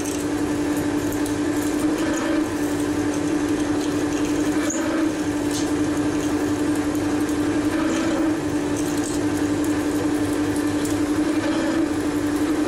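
Weiler Matador lathe running at 200 rpm while a 13 mm twist drill is fed by hand from the tailstock into the workpiece: a steady hum under the noise of the cut.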